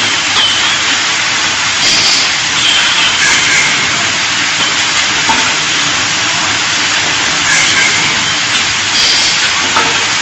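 Laser welding machine at work: a loud, steady hiss like rushing air or gas, with faint short high tones every second or two.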